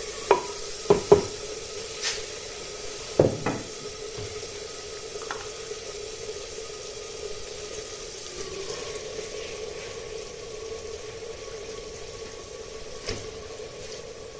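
Tomato-onion masala sizzling softly in a clay cooking pot, with several sharp knocks of a wooden spoon against the pot in the first few seconds, over a steady hum.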